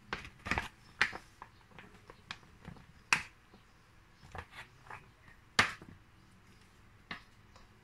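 A few sharp, separate clicks and taps from a flour container and utensils being handled over a stainless steel mixing bowl while flour is shaken in. The loudest click comes a little past halfway.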